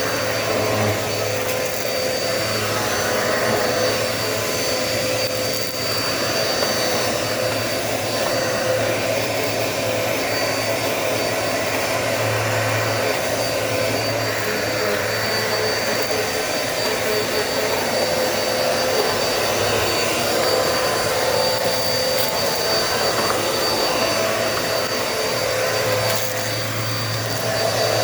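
Dirt Devil Multi-Surface vacuum cleaner running steadily, a motor rush with a thin high whine over it; its low hum swells a little a few times.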